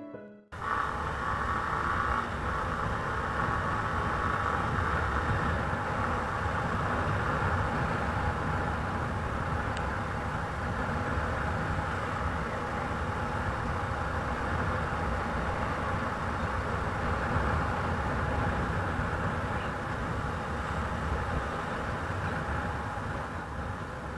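Vehicle driving along a road, heard from on board: a steady mix of engine, tyre and wind noise that starts about half a second in.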